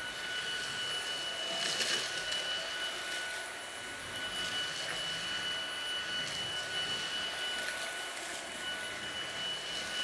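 Kobalt 24V Max cordless stick vacuum running on turbo with its powered brush head on a hard floor: the brushless motor gives a steady high whine over a rushing hiss of air.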